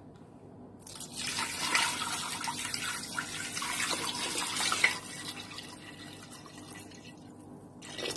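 Water running into a pressure cooker pot over chicken pieces, filling it for about four seconds, then stopping abruptly.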